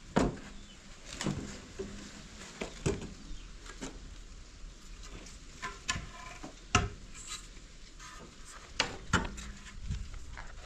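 Irregular sharp knocks and clatters, one every second or two, two of them in a quick pair near the end, like hard objects being handled and set down.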